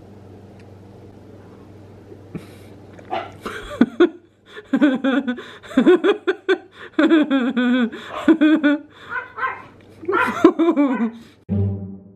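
A person laughing in long, wavering runs for several seconds, over a low steady hum. Just before the end, music with a heavy drum comes in.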